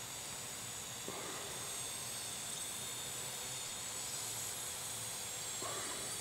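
Parrot quadcopter drone's motors and propellers giving a steady high-pitched whine over a soft hiss while it flies.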